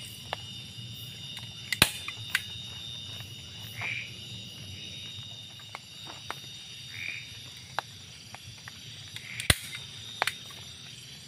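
Night chorus of frogs and insects, a steady high ringing with a short call now and then. A few sharp clicks cut through it, the loudest about two seconds in and near the end.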